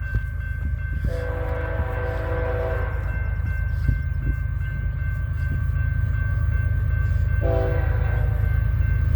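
Multi-chime air horn of BNSF locomotive 7384, leading an intermodal freight train, sounding one long blast about a second in and a short blast near the end. Under it runs the low rumble of the approaching train, growing louder.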